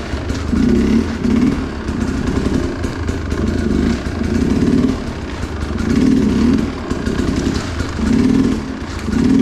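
Two-stroke Sherco enduro dirt bike engine revved in repeated throttle bursts, about one a second, as it is lifted into wheelies; the bottom end is crisp with a freshly tuned Smart Carb.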